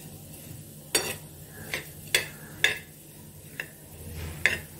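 Spatula scraping across a flat tava, stirring roasting coriander seeds and dals so they rattle over the metal. About six sharp scrapes come unevenly over a low, steady hum.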